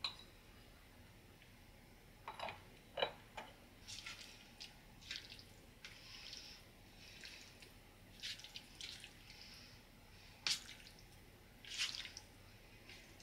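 A hand kneading marinated raw fillet slices coated in potato starch in a metal tray, making faint, irregular wet squishes and smacks.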